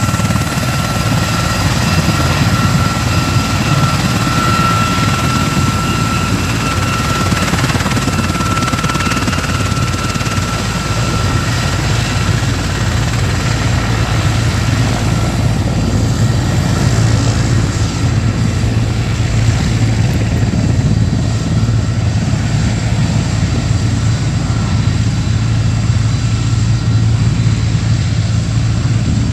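Erickson S-64 Air-Crane heavy-lift helicopter running: its twin turbines and rotor make a loud, steady noise. A high whine fades out about halfway through, while the low rotor throb carries on.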